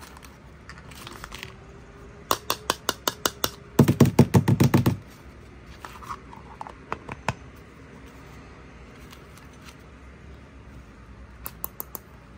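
Crinkling plastic wrapper and a hard plastic toy capsule being handled: a quick run of sharp crackles, densest and loudest from about four to five seconds in, then a few scattered clicks later on.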